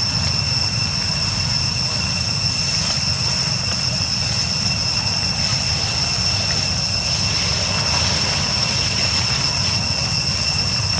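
Steady outdoor drone: a constant high-pitched insect chorus, like cicadas, ringing on several fixed pitches over a continuous low rumble.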